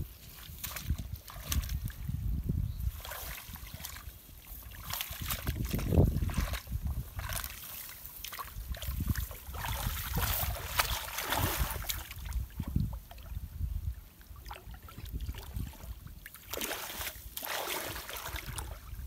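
Water sloshing and splashing in a shallow, weedy canal as a person wades and rakes his hands through the muddy water and water plants. The splashes come irregularly, with louder surges about six seconds in and again around ten to eleven seconds.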